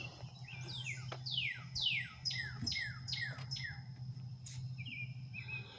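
A songbird singing: a run of quick downward-sliding whistled notes, about three a second, then shorter notes near the end, over a steady low hum.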